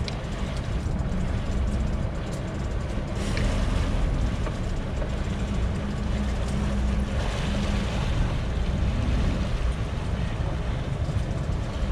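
Motorboat's engines running with a steady deep drone, growing a little louder a few seconds in as the propellers churn up water at the stern.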